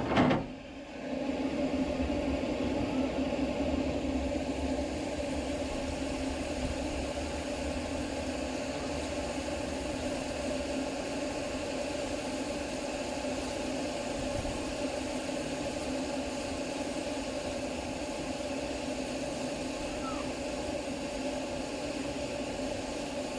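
Steady noise in the cab of steam locomotive No.3 'Sir Haydn', a constant hum with no chuffing beat, after a brief loud burst right at the start.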